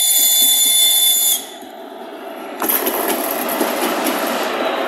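Electric locomotive sounding a shrill, high-pitched whistle for about a second and a half as it approaches. Then its wheels and running gear rumble and clatter loudly past at close range.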